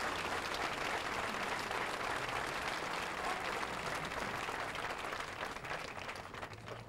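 Crowd applauding, dying away near the end.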